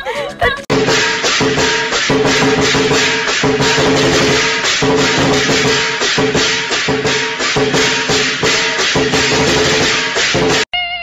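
Upbeat background music with a fast, busy beat over repeating notes. It starts suddenly just under a second in and cuts off abruptly near the end.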